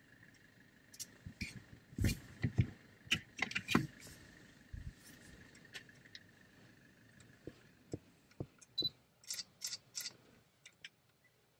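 Irregular sharp clicks and knocks: a cluster of louder ones about two to four seconds in and a quick run of four or five near the end, over a faint steady high tone.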